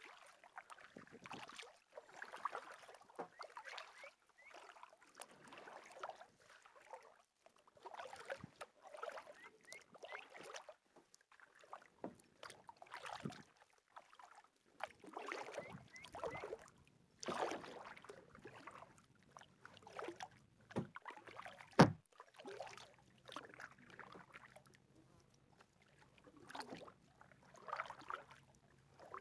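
Kayak paddle strokes: a double-bladed paddle dipping and pulling through calm lake water, splashing and dripping in a burst every second or two. A single sharp knock about three-quarters of the way through is the loudest sound.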